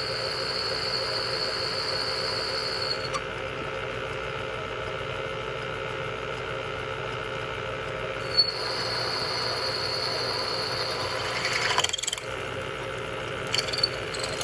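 Bridgeport milling machine running as a twist drill bores a small pritchel hole in a steel railroad-track anvil. A thin, high, steady squeal from the cutting bit sounds for the first few seconds, stops, and returns about eight seconds in, with a brief clatter near the end.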